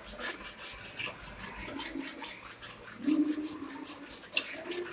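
Spoon or ladle stirring thick curry gravy in a metal pot, with repeated irregular scraping and clicking against the pot, and a wet, bubbly rasp from the gravy.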